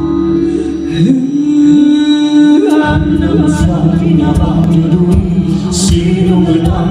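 Live band music with a singing voice over held drone tones; about three seconds in, drums and bass come in and the full band plays on.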